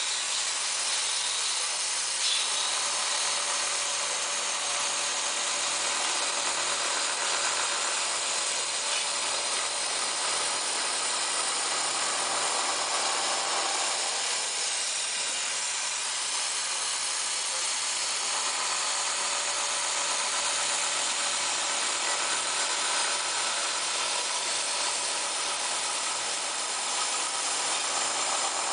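CNC vertical milling machine cutting a metal aircraft door hinge part: the cutter running through the metal with a steady hissing machining noise that swells and eases a few times.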